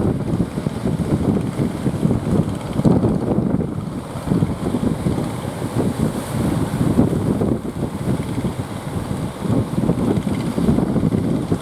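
Strong wind gusting across the microphone, a loud, uneven rumble.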